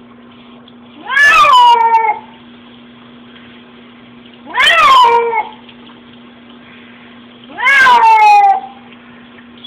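Cat yowling three times, loud drawn-out meows of about a second each that rise and then slide down in pitch, in protest at being bathed to wash off skunk spray.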